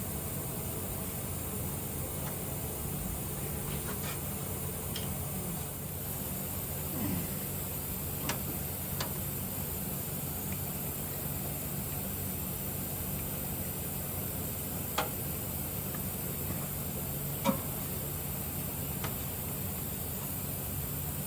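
Steady hiss and low hum with a handful of sharp metal clicks and taps a few seconds apart, from hand tools and small fittings being worked on a tractor diesel engine.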